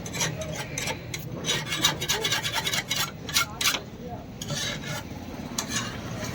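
Hand file rasping on the steel billhook blade made from truck leaf-spring steel, in a run of short, irregular strokes, about three or four a second, with a brief pause a little past the middle.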